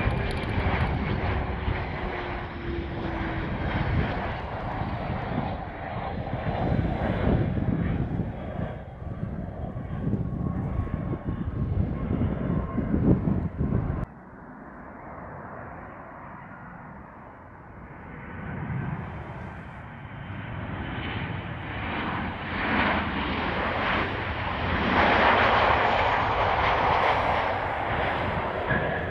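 A Cessna Citation Latitude business jet's twin turbofans run as it lands, with a falling tone over the first few seconds. After an abrupt cut about halfway through, a Boeing 737-800's turbofans grow louder as it comes in to land, loudest near the end.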